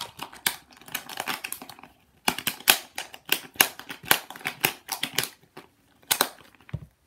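Plastic slime tub and lid being handled and pushed shut: a run of irregular clicks, crinkles and rustles with short pauses, stopping abruptly just before the end.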